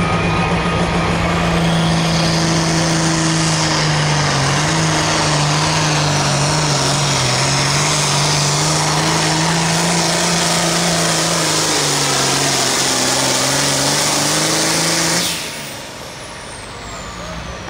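Competition pulling tractor's engine running flat out at high, nearly steady revs during a pull, its pitch sagging and recovering, then cut off suddenly about fifteen seconds in. A high whistle falls in pitch as it winds down.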